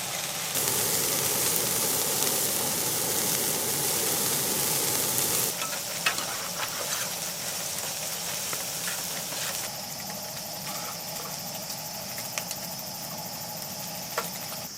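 Food sizzling in a hot pan, a steady frying hiss that is loudest for the first five seconds, with a few sharp clicks of a utensil against the pan.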